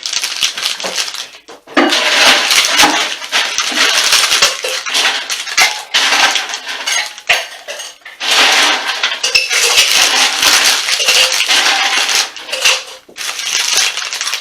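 Snack-chip bag crinkling and rustling in long crackly runs, with short pauses between them.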